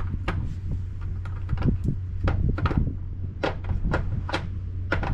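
Metal tools clicking and clinking as a socket set is handled, about a dozen sharp irregular knocks, over a steady low hum.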